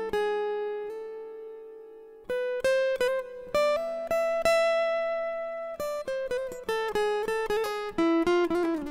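Background score of a solo plucked guitar playing a slow melody. One note rings out and fades for about two seconds, then single notes follow, with a quicker run of notes near the end.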